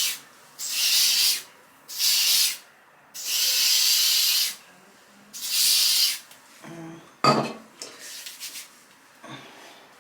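Aerosol can of hair oil sheen sprayed in five short hissing bursts, the longest about a second and a half, followed by a sharp knock about seven seconds in.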